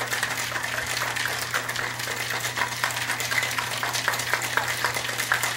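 Ice rattling and clattering inside a metal cocktail shaker shaken hard by hand, a steady run of quick clinking strokes, mixing and chilling a margarita.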